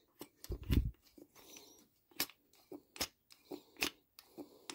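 Hand-worked carburetor slide on an Arctic Cat quad's freshly rebuilt carburetor: a series of irregular sharp clicks as the slide is pushed up and let drop back, testing that it moves freely, with a duller bump about half a second in.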